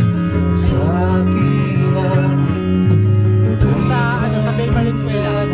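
A small band playing a song live: a man singing into a microphone over electric bass guitar, acoustic guitar and a Casio keyboard.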